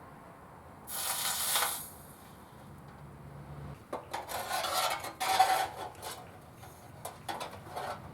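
Small tinplate toy parts being handled: a short rasping scrape about a second in, then a few seconds of metal clinking and rubbing, and light clicks near the end.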